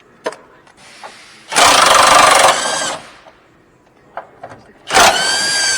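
Power wrench running on the 15 mm bolts of the engine mount, in two bursts: about a second and a half, then about a second near the end with a motor whine that bends in pitch.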